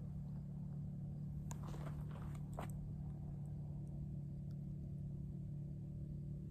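Motorbikes running in the distance, a steady low engine drone, with a couple of faint clicks about one and a half and two and a half seconds in.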